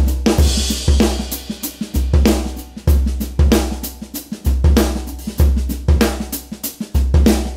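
Music with a driving drum-kit beat, snare, hi-hat and cymbals, over deep held bass notes.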